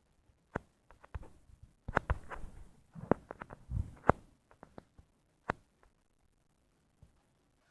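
Irregular sharp taps and knocks, a few heavier thuds among them about two to four seconds in, with quiet gaps between.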